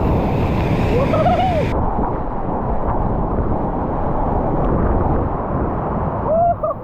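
Loud, steady roar of a river's whitewater rapids running in flood.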